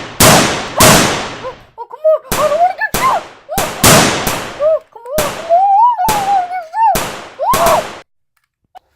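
Rapid, irregular gunfire sound effects, about a dozen loud shots each ringing out briefly, with a voice wailing up and down beneath them.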